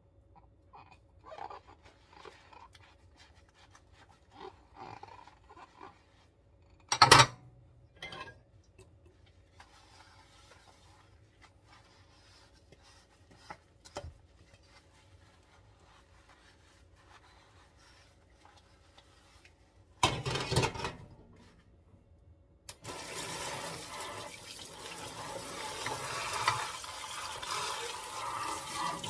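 Dishes scrubbed with a sponge in a stainless steel sink: soft rubbing and light clinks, with one loud clatter of a dish about seven seconds in. About twenty-three seconds in, the kitchen tap starts running steadily as dishes are rinsed under it.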